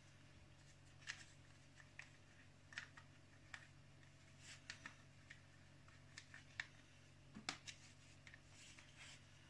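Faint, scattered clicks and rustles of hands handling a plastic dumpling press and dough, a few irregular taps with the sharpest about seven and a half seconds in, over a low steady room hum.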